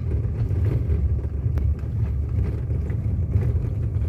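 Car driving, a steady low rumble of engine and tyres heard from inside the cabin, with a faint click about a second and a half in.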